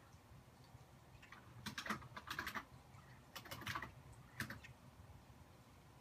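Long-haired tuxedo cat chattering as it watches birds outside: three bouts of rapid jaw clicking, the longest about two seconds in, then a shorter one and a brief one.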